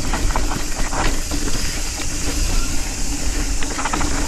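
Nukeproof Scout 275 hardtail mountain bike descending a trail at speed: a steady rush of tyres on dirt and wind on the microphone, broken by scattered knocks and rattles from the bike over bumps.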